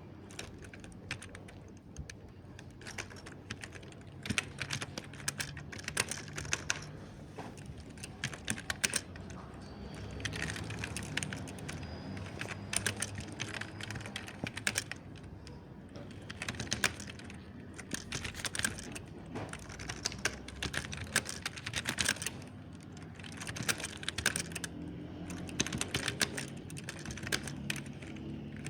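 Mechanical keyboard being typed on: runs of quick, soft key clicks in bursts, with short pauses between them.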